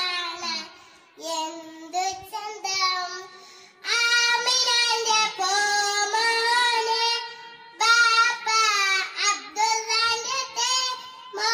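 A young girl singing a devotional song solo into a handheld microphone, without accompaniment, in long held phrases with short pauses for breath.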